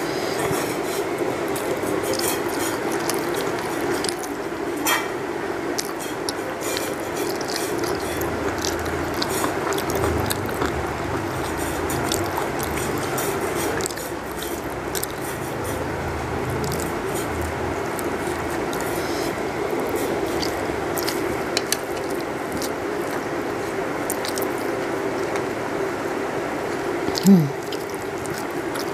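Fingers mixing rice with dal and curry on a steel plate: soft wet squishing with many small clicks, over a steady low hum. A brief vocal sound near the end.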